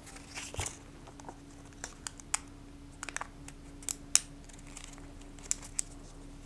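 Scattered light clicks and paper rustles as a paper receipt strip is wound by hand onto the small plastic receipt roller of a toy cash register, the loudest click about four seconds in.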